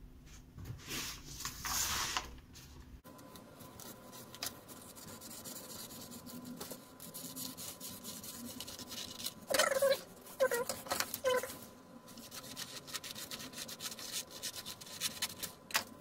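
Scissors cutting through a large paper printout, with paper rustling and a few short squeaky snips. Three of these come close together about ten seconds in.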